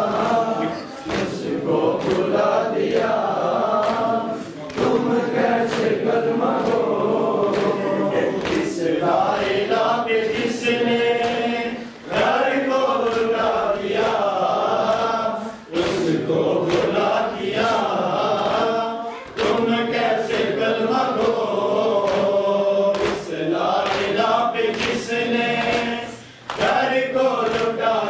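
A congregation of men chanting a lament together in phrases, with short dips between them, over sharp hand slaps on the chest (matam) about once a second.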